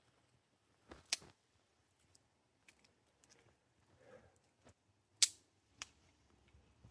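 Wood fire popping: a few sharp cracks, two about a second in and two more about five and six seconds in.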